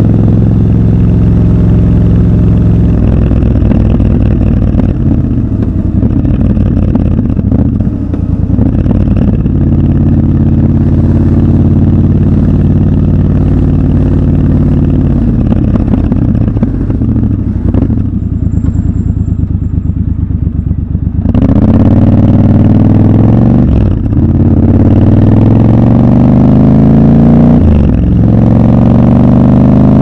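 Triumph Scrambler 1200 XC's 1200 cc parallel-twin engine under way. It runs steadily, eases off and settles to a low steady idle for a few seconds past the middle, then pulls away loudly with the revs climbing, shifting up twice near the end.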